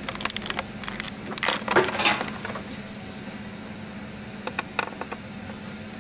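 A person drinking from a glass close to a desk microphone, with small clicks and knocks as the glass is handled and set back down on the wooden desk; the loudest moment comes about two seconds in.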